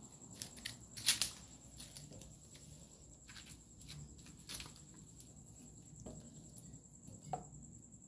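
Scattered crackles and pops from a small open wood fire with meat frying in a pan over it, the loudest about a second in. Crickets trill steadily and high behind.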